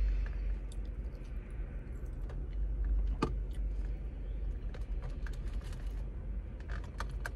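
Chewing and small wet mouth sounds while eating chicken wings, with scattered light clicks from handling the food. A steady low rumble of the vehicle cabin runs underneath.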